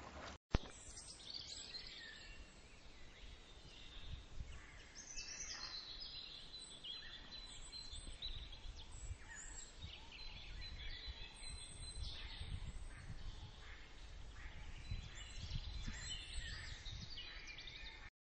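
Outdoor ambience with birds chirping over a low rumble, starting after a brief dropout about half a second in.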